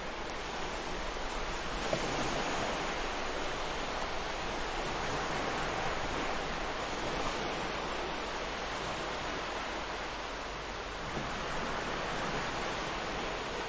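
Ocean waves breaking and washing up the shore in a continuous rush of surf, swelling about two seconds in and again near the end.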